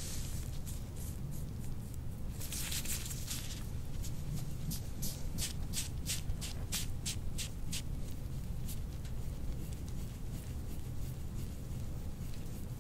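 Metal soft-tissue scraper drawn in strokes across oiled skin on the back: a longer scratchy scrape, then a quick run of short swishes at about three a second, over a steady low hum.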